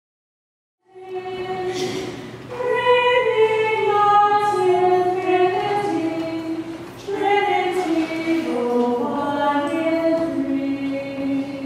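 After about a second of silence, a small group of religious sisters starts singing a slow communion hymn together, women's voices in unison on the melody.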